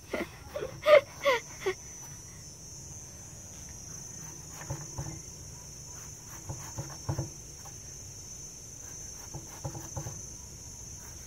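Kitchen knife slicing banana blossom on a wooden cutting board, a few soft knocks here and there. A steady high insect drone of crickets runs under it. Short voice-like calls or sounds come in the first two seconds.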